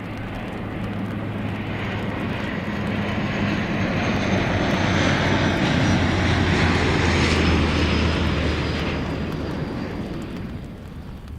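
Airliner's engines passing by on takeoff or landing, swelling to a peak about seven seconds in and then fading, with a steady low hum and a high whine that drops slowly in pitch as it goes by.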